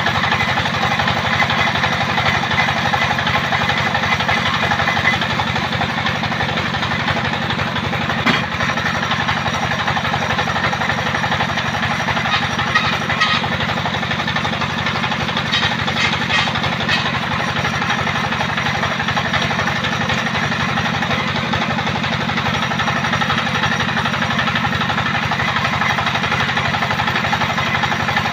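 Engine-driven homemade sawmill built on an old truck chassis, running steadily while its saw rips lengthwise through a log: a constant engine drone under the dense, even noise of the blade cutting wood.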